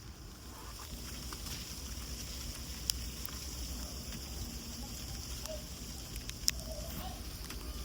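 Steady low rumble and hiss of wind on the microphone, with two sharp clicks, one about three seconds in and one about six and a half seconds in.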